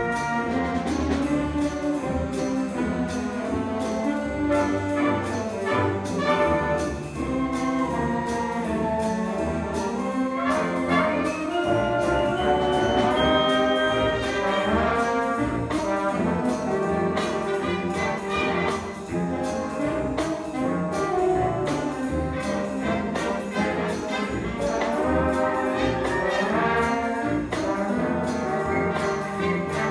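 Concert band of brass, woodwinds and percussion playing a swing-style piece, with trumpets and trombones to the fore over a steady beat.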